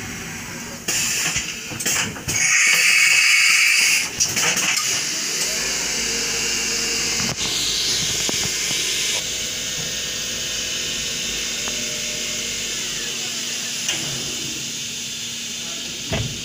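Compressed air hissing in loud bursts from the pneumatic gripper and its valves about a second in, lasting a few seconds. After that the CNC milling machine runs with a steady hiss and hum, a falling whine partway through, and a sharp click near the end.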